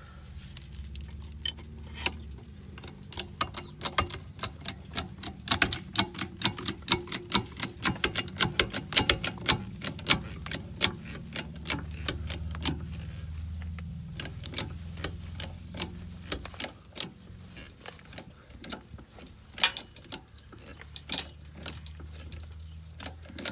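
Wooden blocking creaking and cracking under load as a screw jack lifts a mobile home's frame: a rapid, irregular run of sharp cracks and clicks, thickest in the first half and thinning later, over a low steady hum.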